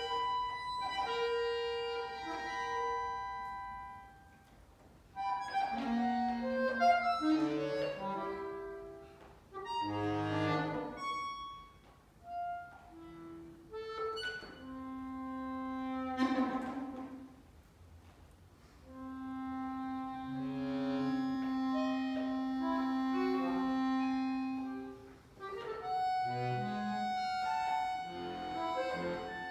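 Solo accordion playing a modern piece: held high chords broken by short pauses, flurries of quick notes, and in the second half long low held tones.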